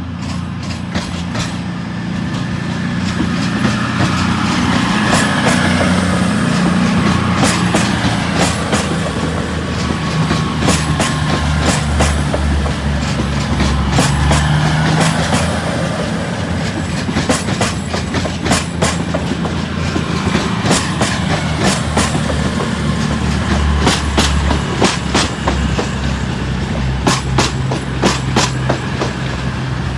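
A CrossCountry Voyager diesel multiple unit, two units coupled, running past along the platform. Its underfloor diesel engines make a steady low drone. The wheels clatter over the track joints and points, and the clicks come thicker in the last few seconds.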